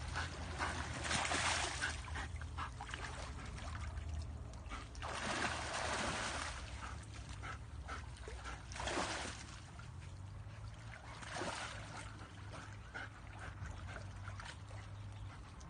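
Water splashing in several short bursts a few seconds apart as a dog moves through it.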